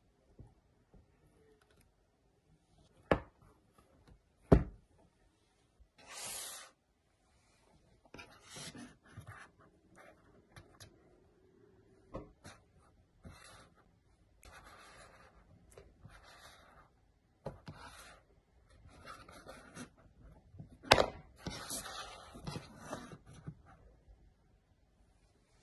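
Cardboard product boxes handled on a hard desk: several sharp knocks as they are set down or tapped, the loudest about three, four and a half and twenty-one seconds in, between stretches of hands rubbing and sliding over the cardboard and plastic packaging.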